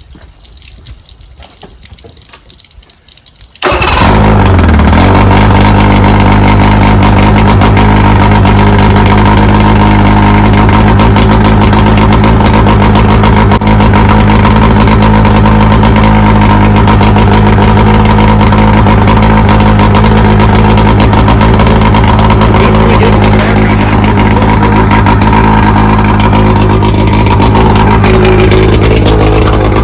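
A 2001 Mercury 115 hp outboard engine starts abruptly about four seconds in and then runs loud and steady, now firing on all cylinders with its forgotten spark plug wire reconnected.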